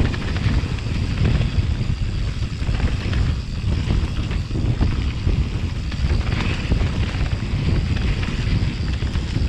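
Mountain bike rolling fast down a dirt trail: a steady low rumble of wind on the action camera's microphone and tyres on dirt, with frequent small knocks and rattles from the bike over bumps.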